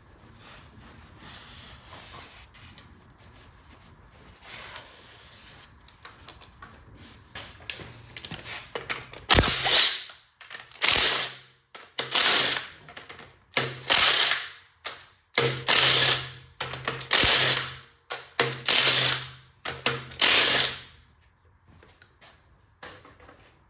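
A handheld power tool, such as a drill/driver or electric ratchet, runs in about eight short bursts in the second half, spinning out bolts during a small-block Ford 5.0 top-end teardown. Before that there is quieter clatter of tools and parts being handled.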